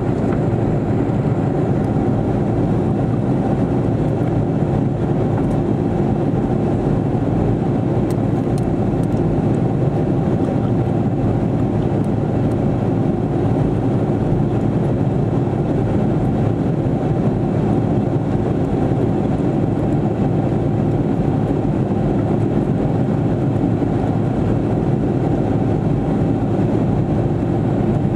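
Airliner turbofan engines heard from inside the cabin, from a seat right beside them: a steady, unbroken drone with a few steady humming tones in it.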